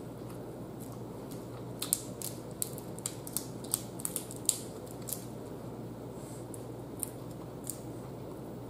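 Boiled blue crab shell cracking and snapping as it is pulled apart by hand: a cluster of sharp clicks about two to five seconds in, and two more near the end, over a steady low hum.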